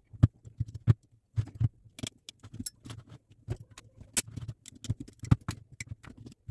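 Irregular sharp clicks and small knocks of hand tools and small parts being handled, close up, with about a dozen louder ticks scattered through.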